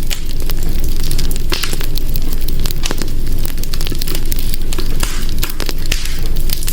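Wood fire in a hearth crackling and popping, with irregular sharp snaps over a steady low rumble of flame.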